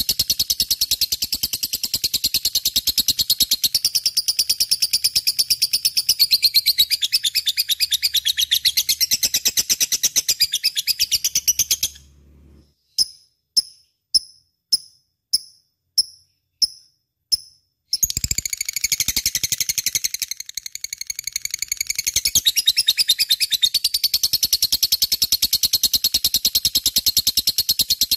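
Lovebird chattering in rapid, continuous high chirps. About twelve seconds in, the chatter drops out for some six seconds, leaving a string of single, evenly spaced chirps, before the dense chirping resumes.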